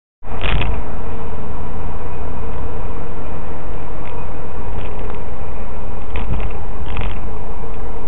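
Car interior noise picked up by a dashcam microphone while driving: loud, steady engine and road rumble with a constant buzzing hum, starting abruptly just after the beginning, with a few short knocks or bumps.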